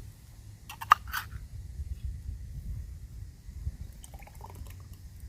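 Thick soup being poured from a can into a cooking pot, with a few sharp clicks about a second in and softer clicks near four seconds.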